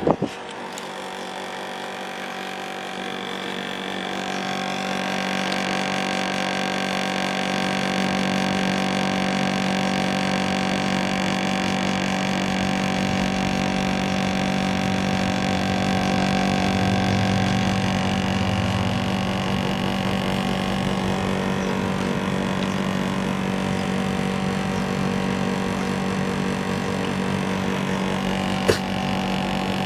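National CU-915KH mini-split air conditioner outdoor unit running with a loud, steady hum made of several steady tones, which swells over the first few seconds and then holds; a single click comes near the end. The owner blames this noise on the unit's worn-out vibration absorbers.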